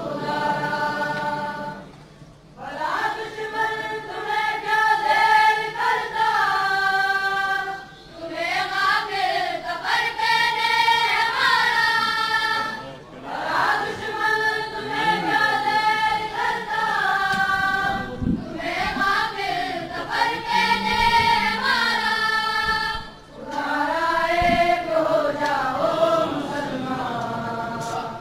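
Slow, chant-like singing in long held notes that bend in pitch, sung in phrases of several seconds with brief breaks between them.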